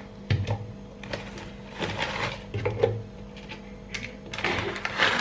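A dry block of Korean instant noodles handled and broken into a frying pan: scattered crackling clicks and a few light knocks against the pan, over a steady low hum.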